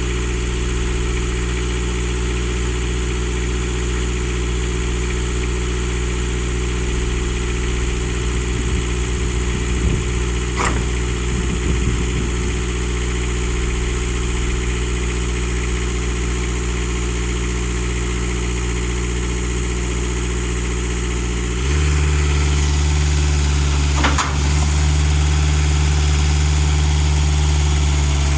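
Engine idling steadily. About three quarters of the way through, its note shifts and it gets louder, and there are a couple of faint clicks.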